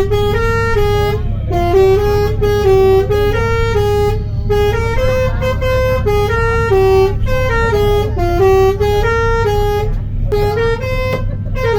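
Indonesian bus 'telolet' multi-tone horn playing a tune of quick stepped notes over and over, with a few brief breaks, over the steady low rumble of the engine.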